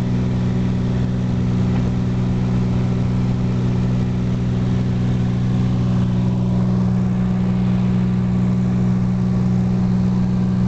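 Cessna 182's piston engine and propeller running steadily in flight, an even drone heard inside the cabin.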